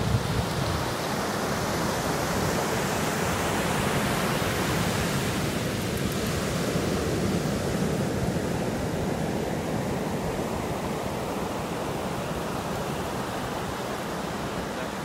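Steady wash of ocean surf breaking and running up a sandy beach, an even hiss without pauses.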